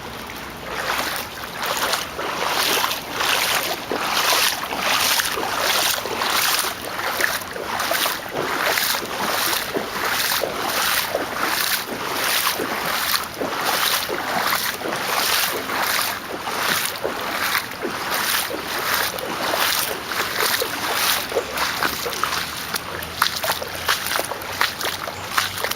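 Legs wading through street floodwater, a rhythmic slosh and splash with each stride, about two strides a second.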